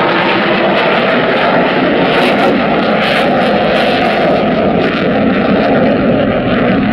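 Loud, steady jet noise from a McDonnell Douglas EF-18A Hornet's twin General Electric F404 turbofans as the fighter flies a display pass.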